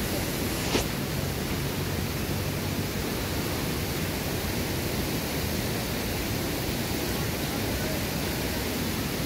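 Steady rush of creek water, an even hiss with no change, with one brief click under a second in.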